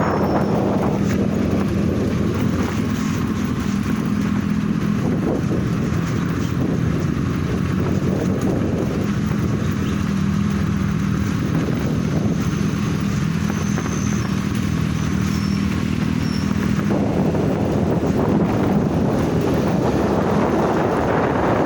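A vehicle's engine running steadily while under way, with wind buffeting the microphone.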